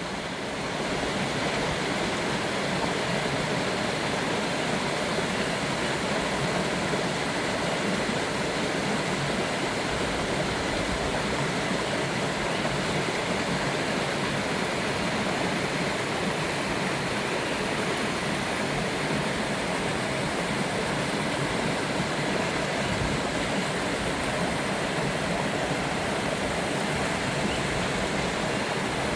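Mountain waterfall pouring steadily, a constant rush of falling water that fades in over the first second.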